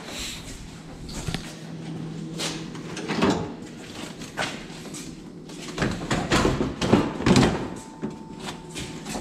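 Plastic front bumper cover knocking, scraping and rubbing against a car's front end as it is lifted on and pushed into place, with a busier run of clatters and thumps in the second half.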